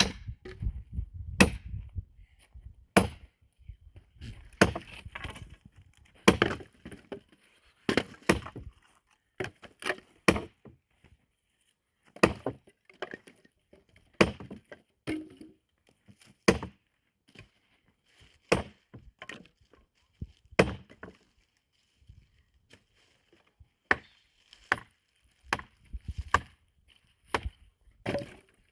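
Firewood being chopped: a long series of sharp, dry blows on wood at an irregular pace, roughly one a second, with short pauses between runs.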